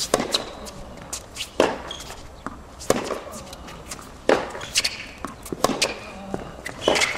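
Tennis rally on a hard court: the ball cracking off the strings of the players' rackets and bouncing, a sharp hit about every second and a half.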